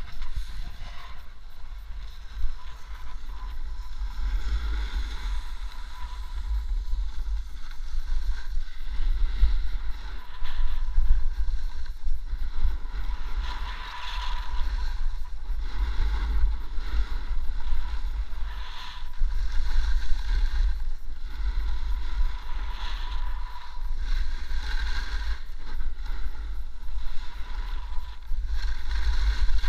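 Wind buffeting an action camera's microphone as a snowboard runs downhill, with the board's edge scraping and hissing over the snow in surges as it turns.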